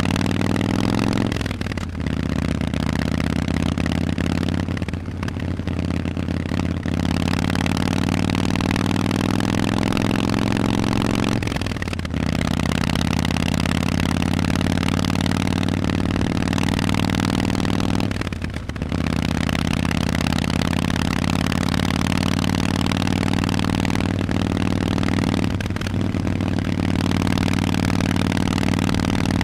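Harley-Davidson Forty-Eight's air-cooled 1200 cc V-twin running through Vance & Hines aftermarket exhausts while under way. The engine note climbs slowly in pitch, and its level drops briefly about five times before picking up again.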